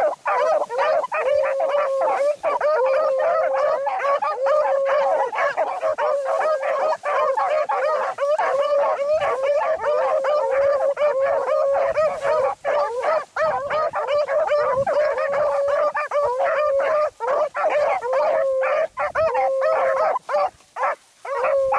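A pack of beagles baying almost without pause as they run a rabbit's trail, several voices overlapping, with a few short breaks near the end.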